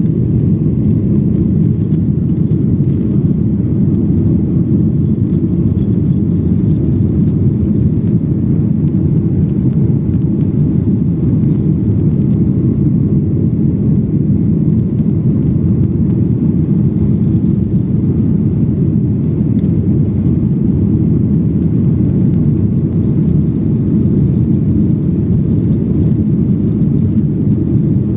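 Jet airliner cabin noise heard at a window seat in flight: a loud, steady low rumble of the engines and the air rushing past the fuselage.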